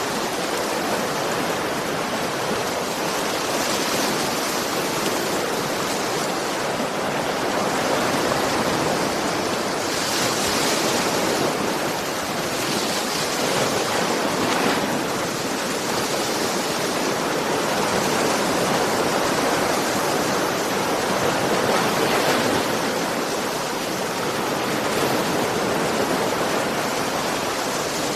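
Ocean surf washing onto a shore: a continuous hiss of water that swells and eases every few seconds as waves come in.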